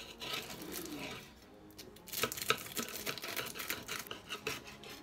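A long knife sawing through the flaky, crisp puff-pastry crust of a baked frangipane pie, with a run of sharp crackles and crunches about two seconds in.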